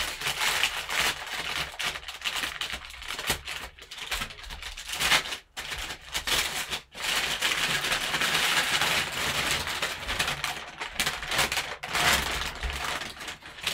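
Brown kraft packing paper crinkling and rustling as it is pulled off a football, a dense run of crackles that breaks off briefly twice midway.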